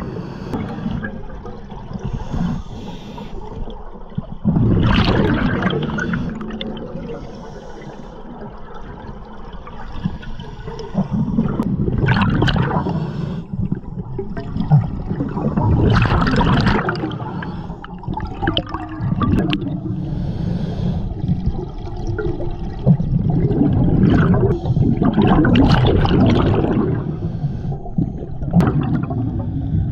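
Scuba diver breathing through a regulator underwater: exhaled bubbles gush and gurgle in bursts every few seconds over a steady low water rumble.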